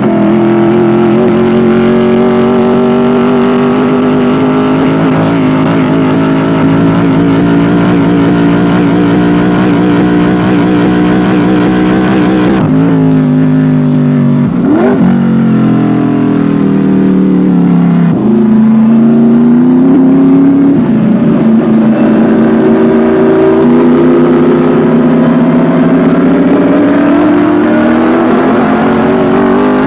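Scarab race car's Chevrolet V8 running hard. The pitch holds high, sags and climbs again several times, with a quick sweep up and down about fifteen seconds in.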